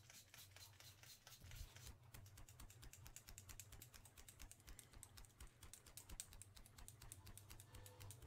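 A pump-spray mist bottle of setting spray pumped several times in quick succession, then a folding bamboo hand fan waved fast in front of the face, a rapid run of faint ticks from about two seconds in.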